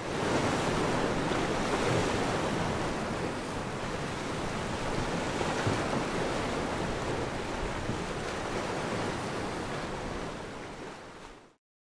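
Sea surf washing onto a beach: a steady rush of noise that fades in at the start and fades out shortly before the end.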